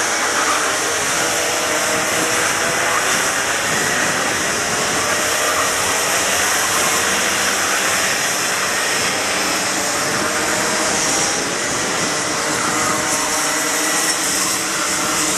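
A field of two-stroke racing kart engines running hard together, many overlapping engine notes rising and falling in pitch as the karts accelerate and lift through the corners.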